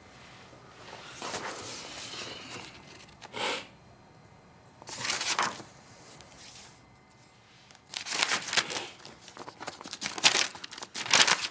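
Paper rustling and crinkling as the pages of a cardboard-covered notebook are handled and leafed through, in several separate bursts, the loudest near the end.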